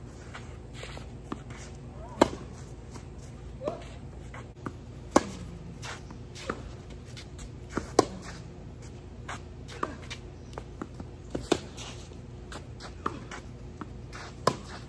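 Tennis rally on a clay court: sharp pops of racket strings hitting the ball about every one and a half seconds. The near player's shots are loud and the far player's are fainter, alternating back and forth.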